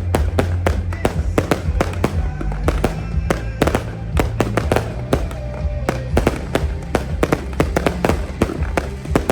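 Fireworks display: a rapid run of firework bangs and crackles, several a second, over loud music with a heavy bass.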